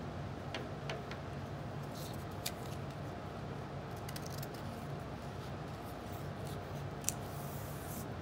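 Construction paper being handled: scattered light clicks and rustles as cut paper pieces are pressed down and moved. Near the end comes one sharper click and a short rasp as scissors are picked up to cut. A steady low room hum runs underneath.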